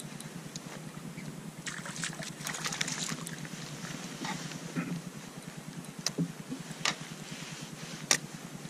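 A hooked black bream splashing at the water's surface about two to three seconds in as it is reeled up beside a kayak, then three short sharp knocks later on as the fish is lifted aboard.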